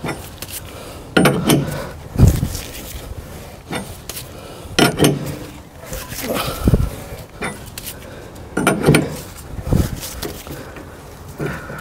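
Steel combination wrench working the forcing screw of a gimbal bearing puller in a MerCruiser Bravo III gimbal housing. It goes in separate strokes about every one to two seconds, each a clink of steel on the puller's plate and screw with a low thud, as the wrench is reset and pulled again. The screw is forcing the old gimbal bearing out, a little bit of work.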